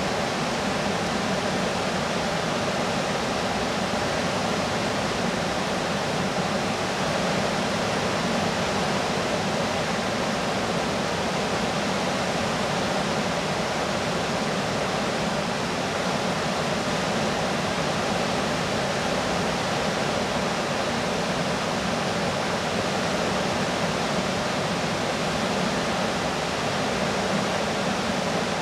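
Whitewater river rapids rushing steadily, an even, unbroken sound of water with nothing else standing out.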